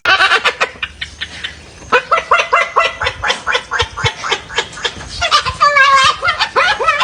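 Parrot calling in a rapid run of short, pitched calls, several a second, with a longer wavering call about six seconds in.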